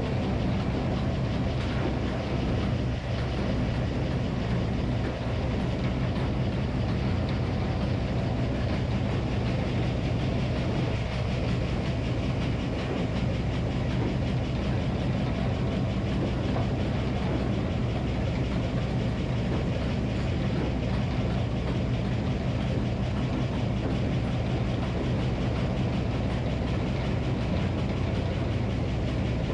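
Minneapolis Moline HEB 605 cubic inch engine of a Frick sawmill running steadily at an even speed, with a low, constant engine note and no change in load.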